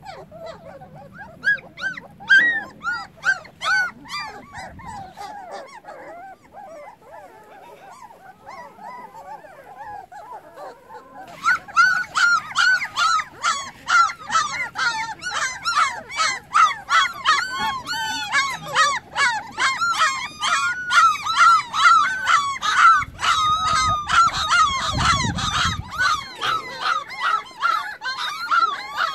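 A litter of young shepherd-dog puppies whining and yelping, calling for their absent mother: many short rising-and-falling cries, scattered at first, then a dense overlapping chorus from about eleven seconds in.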